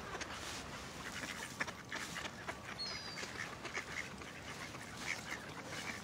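A crowd of mallard ducks quacking, with many short calls scattered through. A couple of short, high chirps come about three seconds in.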